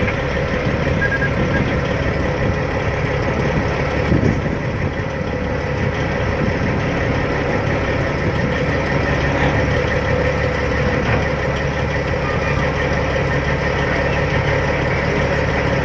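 Heavy truck's engine idling steadily, heard from inside the cab.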